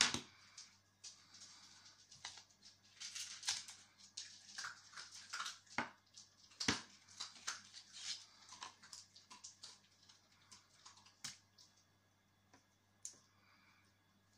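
Makeup items and their cases being handled on a table: irregular light clicks, taps and rustling, with a few sharper knocks, the loudest about seven seconds in.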